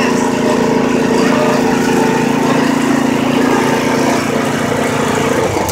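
Lawn mower engine running steadily on a constant note, which changes just before the end.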